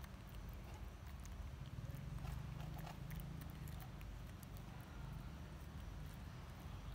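Scattered small clicks and crackles of macaques cracking peanut shells and chewing, over a low steady outdoor background rumble.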